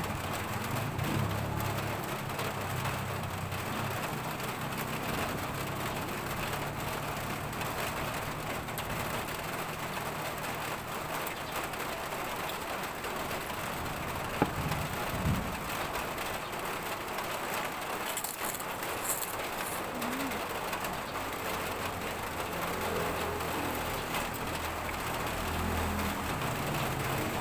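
Doves cooing over a steady background hiss, with a single sharp click about halfway through.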